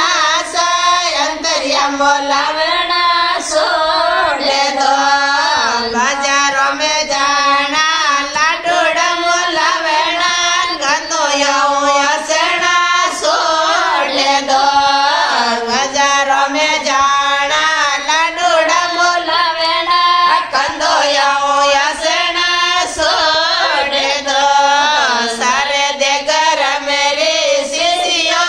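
A group of women singing a Marwari wedding song (vivah geet) together in a folk style, voices only.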